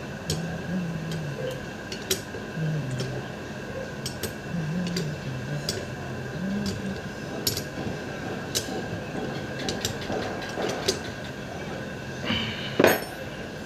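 Ring spanner turning a terminal nut on a starter motor's solenoid: scattered small metallic clicks and clinks as the spanner is worked, with one louder clatter about twelve and a half seconds in.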